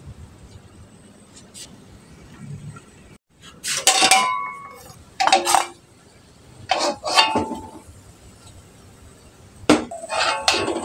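Dishes and utensils clinking and clattering as they are handled, in four short bouts of clatter with brief ringing tones, after a quieter first few seconds.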